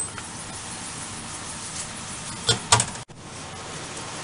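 Steady workshop background noise with two quick knocks, about two and a half seconds in, from metal pieces being handled at the bench.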